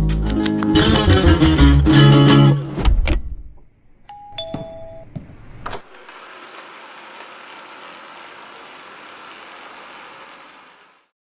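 Acoustic guitar music that stops about three seconds in. It is followed by a short two-note electronic chime, high then lower, and then a steady even hiss that fades out near the end.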